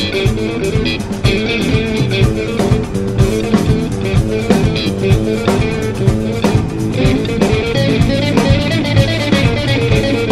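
Live rock band playing an instrumental passage: electric guitar notes over a drum kit and bass guitar, with drum hits on a steady beat.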